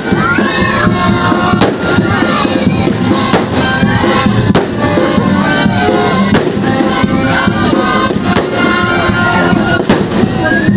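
Loud music with singing, with several fireworks shells bursting over it in sharp bangs.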